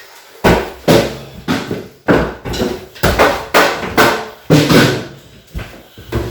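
Percussion played in a steady beat: hard hits about twice a second, starting about half a second in, each ringing briefly.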